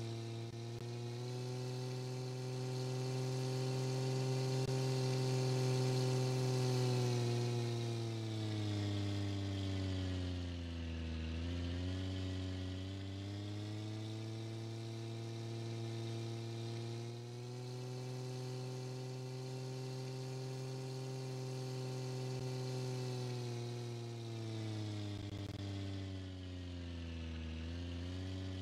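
Simulated tractor engine sound from driving-simulation software: a steady, buzzy engine drone. Its pitch sinks and climbs back twice, around eleven seconds in and again near the end.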